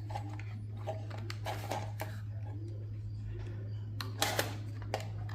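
Light clicks and taps of server parts being handled during a teardown, a few scattered strikes over a steady low hum.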